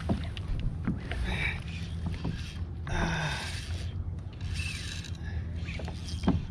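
Sounds of a fishing kayak on the sea: a steady low rumble of wind and water on the camera, with a few short rushing, splashing bursts during the fight with a hooked bass.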